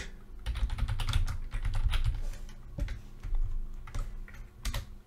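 Typing on a computer keyboard. A quick run of keystrokes lasts about two seconds, then comes a few separate clicks.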